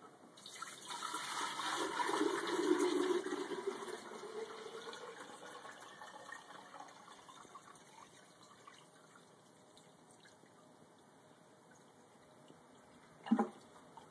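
Water poured from a plastic bucket into an aluminum concrete pressure-meter bowl: a gushing splash that starts about half a second in, is strongest for the first few seconds, then tapers off as the pour slows, its pitch rising as the bowl fills. A short knock near the end.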